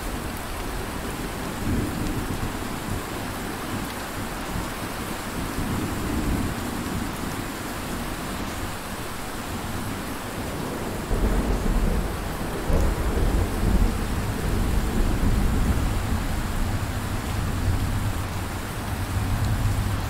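Steady rain with thunder rumbling. A long, deep roll of thunder swells up about halfway through and rumbles on for several seconds.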